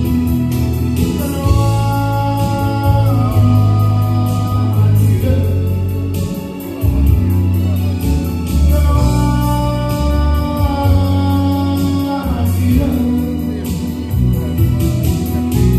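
A man singing an evangelical hymn in Tunisian Arabic through a microphone, holding long notes, over an instrumental accompaniment with a bass line and a steady beat.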